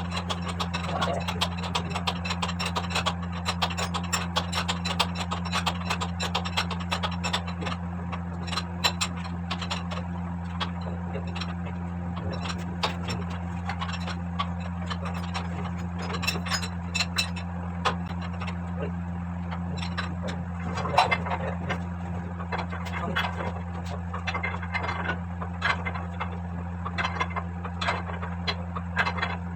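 Steady low machinery hum with frequent sharp metallic clicks and knocks from hand tools working on engine parts during a piston installation.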